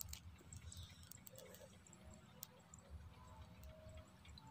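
Near silence: faint outdoor room tone with a low rumble and a few small ticks.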